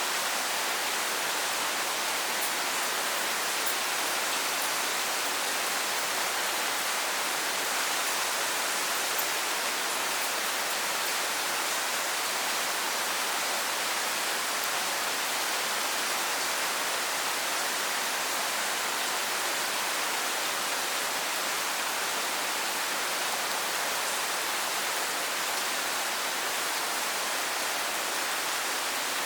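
Steady heavy rain falling, an even hiss with no distinct drops or other sounds standing out.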